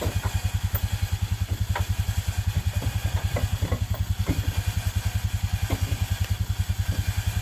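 A small engine, likely the ATV's, idles steadily with an even, fast low pulse. Scattered light clicks and knocks sound over it.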